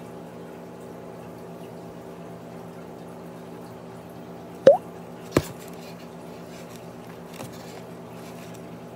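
Steady hum of a homemade icebox incubator, with two sharp clicks about halfway through, the second under a second after the first, and a faint one later, as a newly hatching chick pushes its way out of its eggshell.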